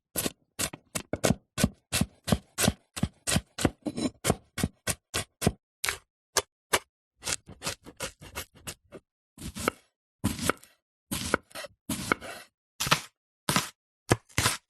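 Knife chopping and cutting fruit and vegetables on a cutting board: quick, even chops about four or five a second for the first six seconds, then slower, longer cuts with a slight scrape.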